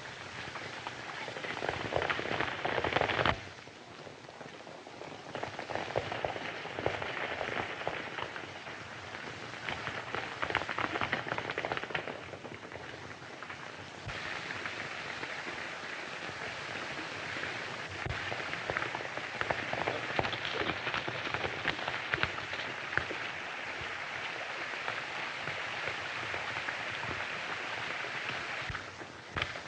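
Horses galloping over dirt and brush, a dense patter of hoofbeats. It swells and fades in several bursts, then runs evenly for the second half before dropping off near the end.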